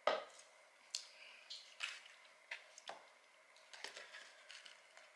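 Close-miked eating sounds: a sharp knock right at the start, then wet chewing and mouth clicks at irregular intervals. About four seconds in come a few quicker light clicks of a metal fork twirling spaghetti in a cardboard box.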